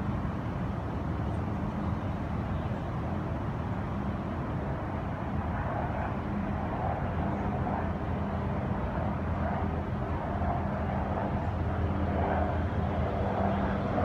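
An engine running steadily, a continuous low hum.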